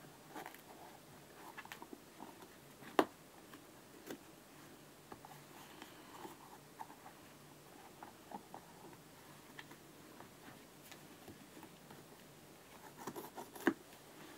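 Adidas Predator football boot being torn apart by hand: scattered rustles and small crackles as the synthetic upper is pulled and peeled, with a sharp click about three seconds in and another near the end.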